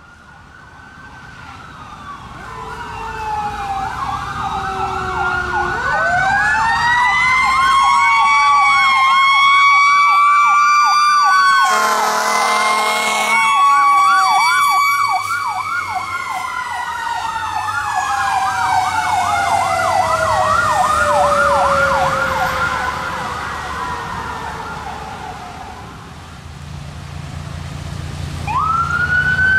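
Pierce Velocity fire truck approaching and passing with an electronic yelp siren and a mechanical Federal Q siren winding up and coasting down. A blast of air horns comes about twelve seconds in. Near the end another siren starts up on the following ambulance.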